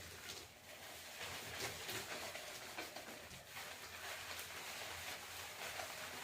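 Faint, irregular rustling and squishing of hands working shampoo lather through wet hair.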